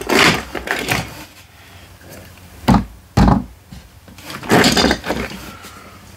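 Hands rummaging through a cardboard box of small plastic toy figures: irregular bursts of rustling and clattering, with two dull thunks against the box about three seconds in.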